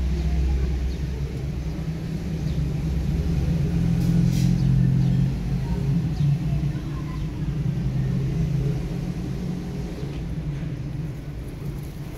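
A low, steady engine-like rumble, a little louder around four to five seconds in.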